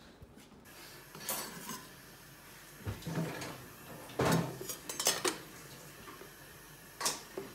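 Metal spatula clacking and scraping against a metal baking sheet and the stovetop as a baked dog-bone treat is lifted off. It makes a string of sharp clinks, the loudest about four seconds in.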